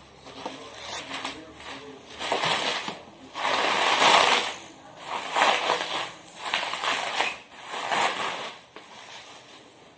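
Packing paper and wrapping being torn and crumpled off a boxed car headlight, in a series of rustling, crackling bursts, the loudest a few seconds in.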